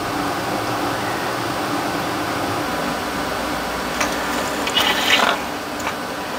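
Steady fan-like rushing background noise, with a short click about four seconds in and a brief crackling hiss about five seconds in.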